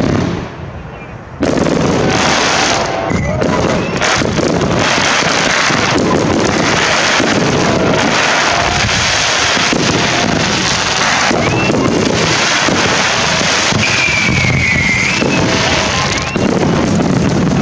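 Fireworks barrage: about a second and a half in it jumps suddenly to a loud, continuous volley of launches and bursts blending into dense crackling that carries on unbroken.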